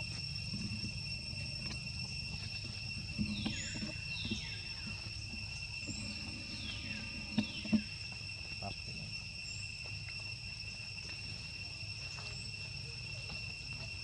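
Steady insect drone of crickets or cicadas, two even high tones. A few short falling whistled calls sound over it through the first half, and two sharp knocks come close together about halfway through.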